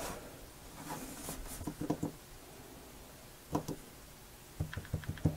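Faint, scattered clicks and taps of hands handling a smartphone on a tabletop and tapping its screen, with a quick cluster of taps near the end.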